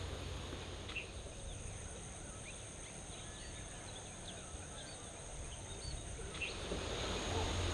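Rural outdoor ambience: scattered short bird chirps and calls over a steady, high-pitched insect drone.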